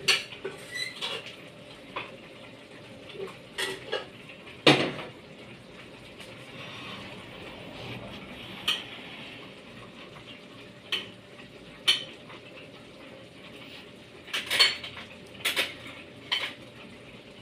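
A metal spoon clinks and scrapes against a steel pot and a plate as food is served. The clinks are scattered, the loudest about five seconds in, with a cluster near the end.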